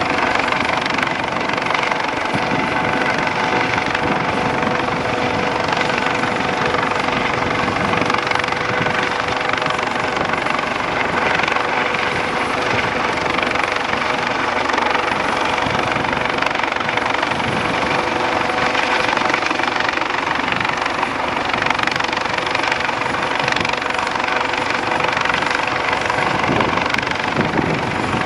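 Eurocopter AS365 Dauphin rescue helicopter hovering overhead for a hoist, its twin-turbine engines and rotor running steadily with a steady whine through the noise.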